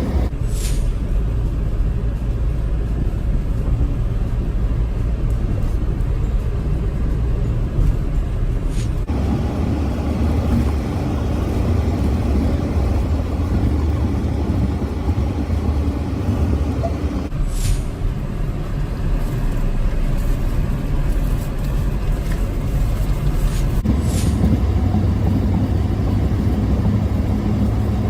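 Steady engine and road noise of a vehicle driving on the road. The sound changes abruptly three times, about a third of the way in, past halfway and near the end.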